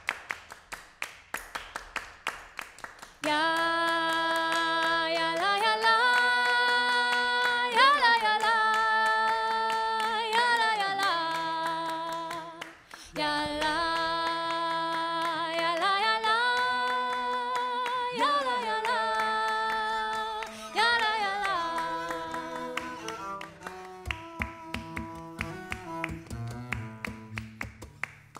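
Hand claps keeping a steady beat, a little over two a second, under a melody of long held notes that step and slide between pitches. The melody comes in about three seconds in, falls away briefly in the middle and fades over the last few seconds, leaving the claps.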